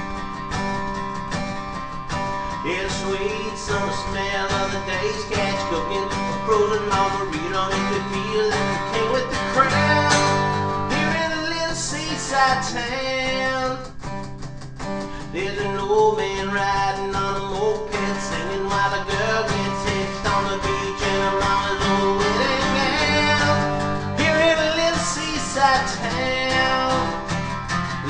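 Background country music in an instrumental break: guitar-led, with a wavering melody line over a steady accompaniment and no singing.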